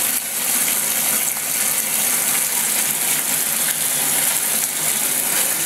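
Kitchen hot tap running steadily, its stream splashing into a plastic washing-up bowl filling in the sink, while the combination boiler is still heating the water.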